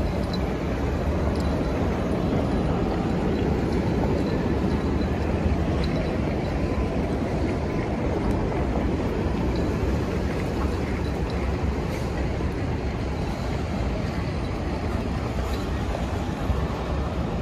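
Steady street traffic noise of a Manhattan avenue: a continuous low rumble of passing vehicles, with a few faint ticks and knocks.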